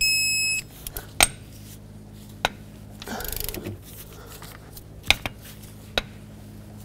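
Digital torque wrench beeping once for about half a second on a cylinder head bolt, the alert that it has reached its setting. Several sharp clicks of the wrench and socket on the bolts follow, with a brief scraping stretch a little past three seconds.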